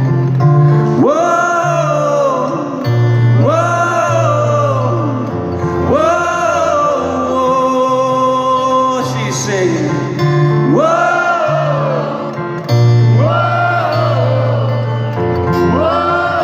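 Live acoustic band music: steady low bass notes and guitar under a wordless sung phrase that rises and falls, repeated about every two and a half seconds.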